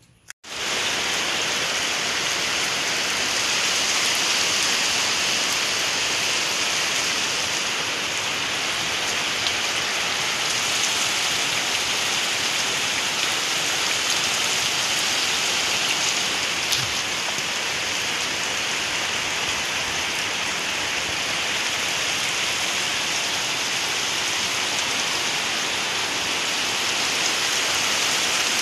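Heavy typhoon rain falling steadily, a dense even hiss of rain on the ground and thatched roofs.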